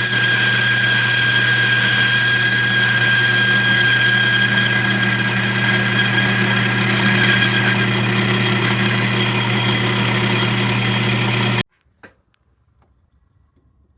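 Metal lathe running steadily with a constant hum and a high whine as it cuts a pulley's bore bigger. The sound cuts off suddenly near the end, followed by a single click.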